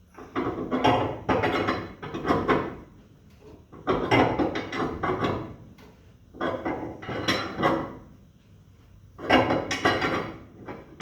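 Prototype coil-spring compressor being cranked with a ratchet handle: four bursts of rapid metallic clicking and clatter as the front coil spring is squeezed down.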